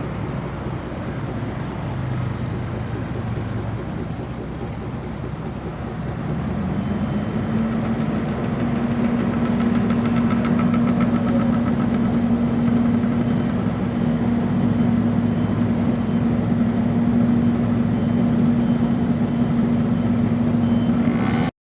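A motor vehicle engine running close by amid street noise. About six seconds in, a steady low hum rises a little in pitch and grows louder, then holds.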